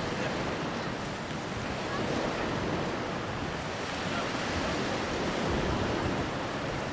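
Steady wash of sea surf, mixed with wind rumbling on the microphone.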